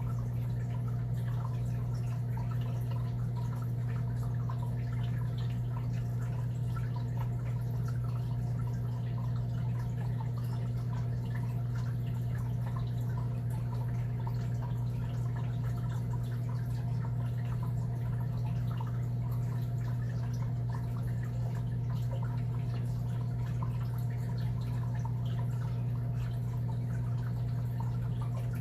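Steady low electrical or motor hum, unchanging, with faint scattered small clicks over it.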